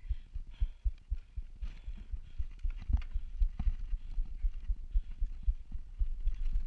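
Mountain bike rolling over a dirt singletrack, heard through a bike-mounted action camera's microphone: dense, irregular low thumps from trail bumps and wind buffeting, with a faint hiss above.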